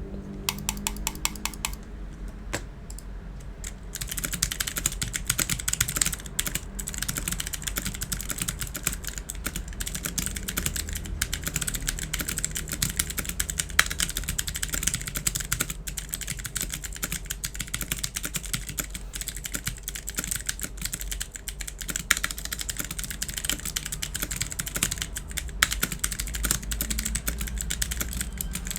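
Typing on an Imperion Mech 7 mechanical keyboard with Long Hua blue clicky switches: a fast, continuous run of sharp key clicks. The keystrokes are sparse for the first few seconds, then become dense and steady from about four seconds in.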